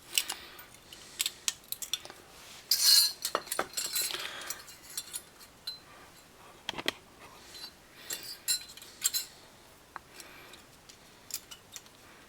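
Light metal clicks and clinks of new brake pad keeper clips being snapped into place on the brake, irregular and busiest in the first half, with a short scraping rattle about three seconds in.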